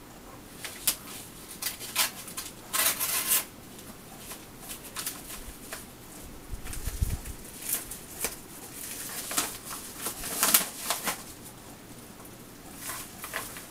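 A mail envelope being handled and torn open by hand: irregular bursts of crinkling and rustling packaging with scattered sharp clicks. The loudest bursts come about three seconds in and again about ten seconds in.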